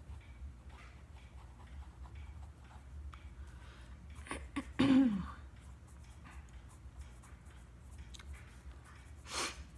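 Faint scratching and light ticks of a pencil writing on paper. About halfway through there is a short, louder vocal sound from the writer that falls in pitch, and near the end a sharp breath.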